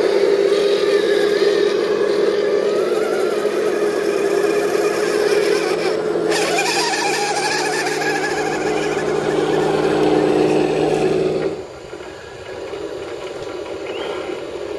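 Electric motors and gearboxes of scale RC crawler trucks whining steadily as they crawl along at even throttle. The whine cuts off suddenly about 11 to 12 seconds in, leaving a quieter, fainter running sound.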